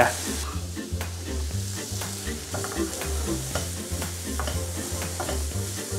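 Finely diced red onion sizzling in hot olive oil in a non-stick frying pan, stirred with a spatula that scrapes and taps the pan, over background music with a low stepping bass line.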